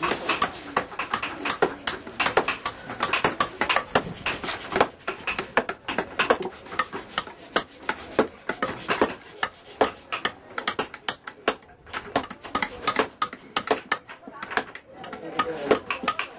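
Hand carving tools chopping into a wooden block: quick, irregular knocks, several a second, as a mask or sculpture is roughed out.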